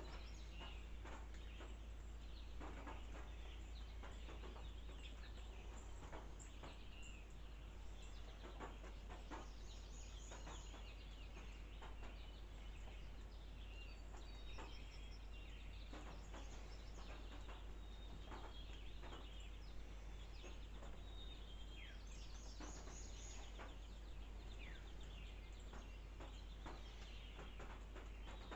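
Many birds chirping and calling, with short rising and falling notes throughout, over a steady low rumble and scattered faint sharp clicks.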